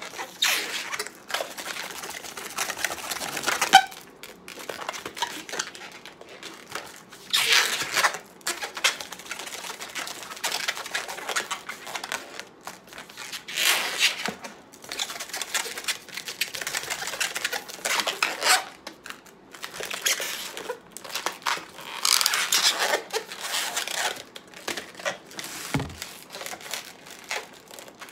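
Long latex modelling balloon being twisted and worked by hand, rubbing against itself and the hands in spells of noise a few seconds apart.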